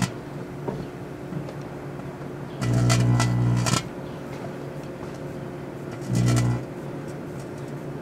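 Microwave oven running with a cigarette lighter and aerial spinner fireworks inside: a steady hum, broken about two and a half seconds in and again near the end by loud buzzing, crackling bursts, the first about a second long, the second about half a second.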